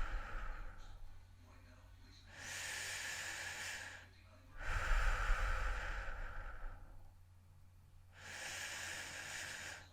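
A person breathing heavily and slowly in and out close to the microphone, about one full breath every four seconds with short pauses between. Every other breath phase carries a low rumble of air on the microphone.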